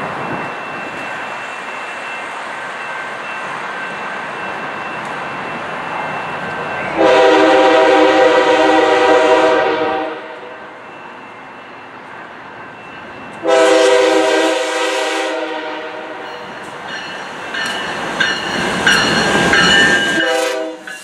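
A BNSF diesel freight locomotive blows its air horn in two long blasts as it approaches, the first about seven seconds in and lasting about three seconds, the second a shorter one a few seconds later. The locomotive then passes close by, its rumble rising with sharp clicks from the wheels.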